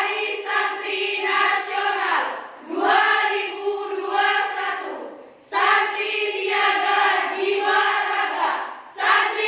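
Girls' choir singing together in sustained phrases, pausing briefly for breath between lines about every three seconds.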